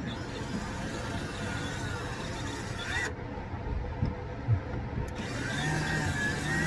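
Cordless drill whining as it bores small pilot holes into the wood overhead. It runs in short spurts, then in a longer run near the end.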